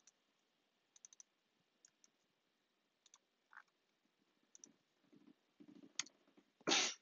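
Scattered computer mouse clicks and keyboard key presses, including a quick run of three clicks about a second in. Near the end comes one short, loud burst of noise, the loudest sound.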